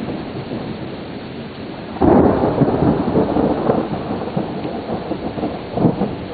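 Steady rain, then a sudden clap of thunder about two seconds in that rumbles on unevenly through the rest.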